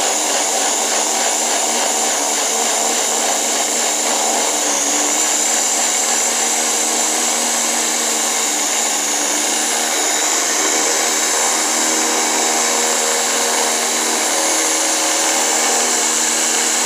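Small electric blender with a top-mounted motor running steadily, its blade chopping carrots, celery, tomato and cucumber in water into a thick vegetable drink.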